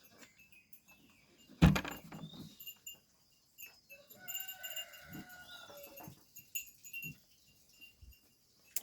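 A sharp knock about two seconds in, then one long bleat of about two seconds from livestock in the pen.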